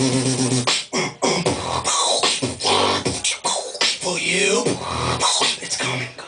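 Solo beatboxing: deep, held vocal bass tones cut by sharp mouth-percussion hits, with a sliding, wobbling tone partway through. It stops abruptly near the end.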